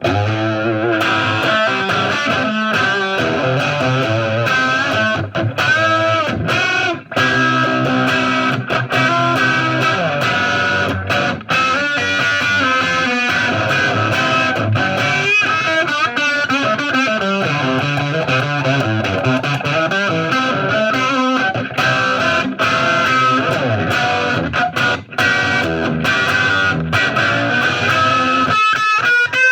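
Gibson ES-339 semi-hollow electric guitar played through an overdriven 1979 Marshall 50-watt 1987 head into Greenback-loaded 1960 cabinets: a rock jam over A minor, C and G chords mixed with lead lines, some held notes wavering with vibrato.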